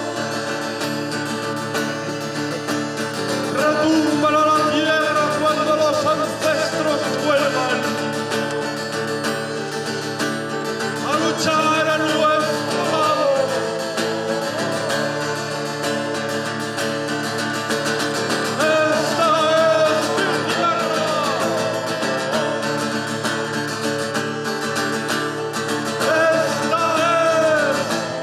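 Live band music: a voice singing over strummed guitar.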